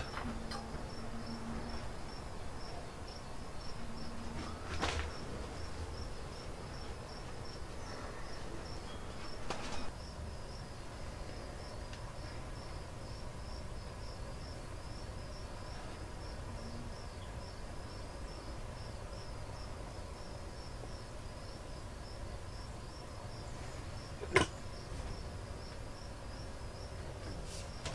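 Insect chirping: a steady, evenly repeating high chirp that runs on throughout. A few short knocks come through, the sharpest about three-quarters of the way in.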